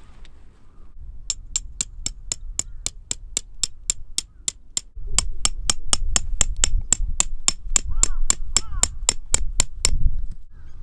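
Metal tent stake being hammered into the ground: a rapid, steady run of sharp metallic clinks, about four a second, with a short break midway. Geese honk faintly near the end.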